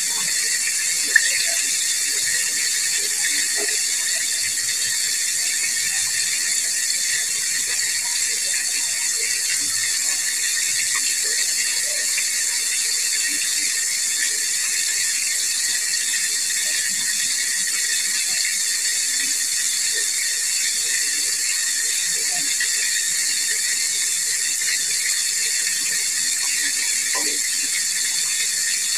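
Whole chicken deep-frying in hot oil in a pot: a steady sizzle with dense crackling and small pops, and one sharper pop about a second in.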